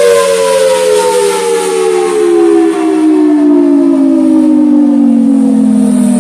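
Federal Signal Thunderbolt 1003 outdoor warning siren sounding loudly, its two close tones sliding steadily down in pitch as the siren winds down.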